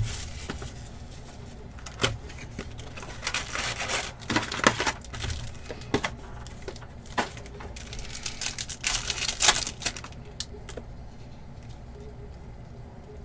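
Trading-card box and packs being opened by hand: cardboard flaps and foil pack wrappers rustling, crinkling and ripping in several short bursts, with scattered clicks and taps of handling.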